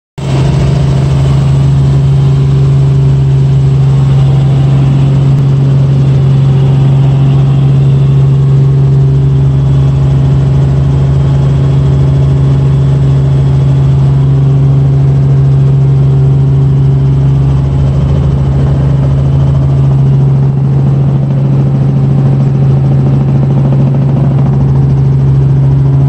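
Robinson R44 Raven helicopter's piston engine and rotors running, heard inside the cabin: a loud, steady drone with a strong low hum, on a landing approach.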